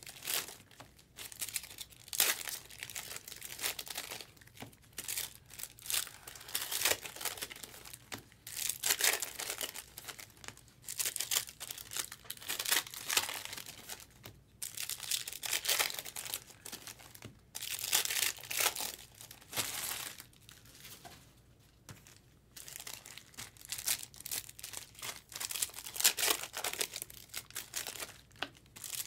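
Plastic wrappers of 2023 Bowman Draft Sapphire trading-card packs crinkling and tearing as they are handled and opened by hand, in irregular bursts of rustling with a short lull about two thirds of the way through.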